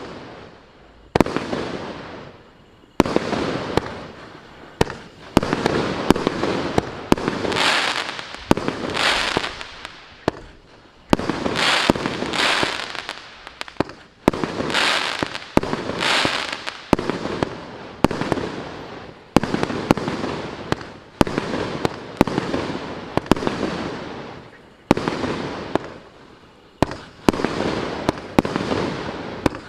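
A Maxsem New Times GWM6602 multi-shot fireworks cake firing shot after shot. A sharp bang comes about every second or so, each trailing off into the crackle of the bursting shells.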